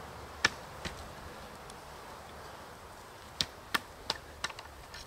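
Ramrod knocking as a patched round ball is rammed down the barrel of a flintlock muzzleloader onto its black-powder charge. Two sharp knocks come near the start, and a quick run of five comes about three and a half seconds in.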